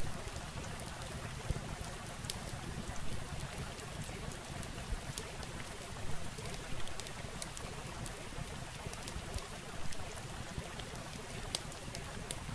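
Steady hiss and low rumble with many scattered sharp clicks and crackles.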